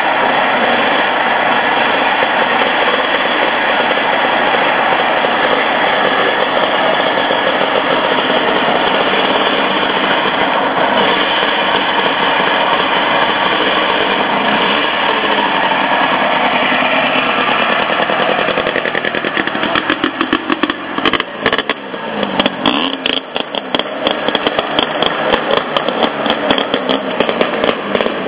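Small two-stroke engine of a Berkeley three-wheeler running steadily at a fast, buzzing idle. From about twenty seconds in the sound turns choppy and uneven, broken up by sharp clicks, as the car pulls away.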